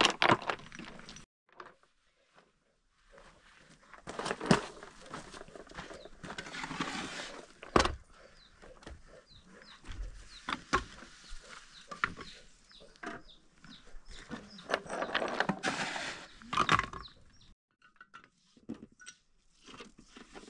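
Rubble stones knocking and clattering against each other and a metal basin as they are loaded and carried, in irregular runs of rattling with a few sharp knocks.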